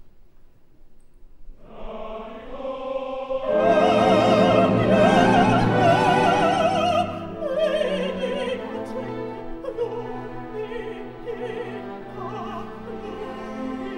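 Operatic mezzo-soprano singing with a wide vibrato over an orchestra. The orchestra comes in about two seconds in. She enters loudly on a high held note about three and a half seconds in, then sings on more softly.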